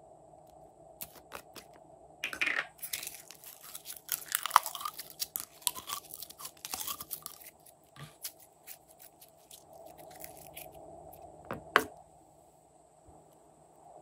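Glossy slime squeezed out of a soft plastic squeeze container and worked by hand: sticky crackling clicks and pops, densest from about two seconds in to about eight seconds, then sparser, with one sharp click near the end.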